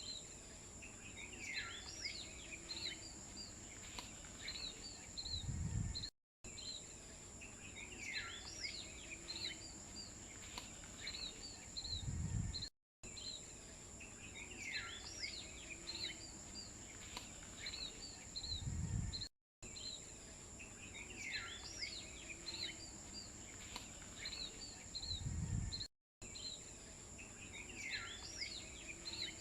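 Looped nature ambience: birds chirping and calling over a steady high-pitched insect drone. The same few seconds repeat about every six and a half seconds, each ending in a short low rumble and a brief cut to silence.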